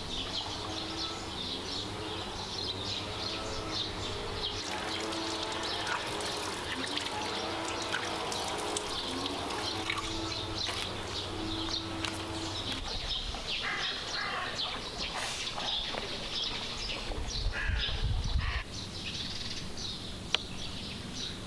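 Small birds chirping repeatedly over a steady low hum that stops about two thirds of the way through, with wavering pitched sounds in the middle range during the first half. A louder low rumble comes near the end.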